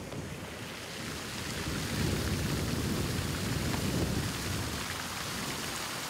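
Outdoor sculpture fountain's jets spraying and splashing into the basin: a steady rushing hiss of falling water, with a heavier low rumble between about two and four and a half seconds in.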